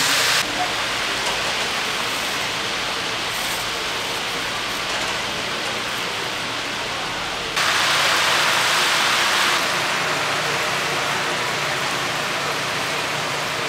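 Whole chickens deep-frying in hot oil, a steady sizzling hiss. It grows louder and brighter for about two seconds in the middle, then drops back.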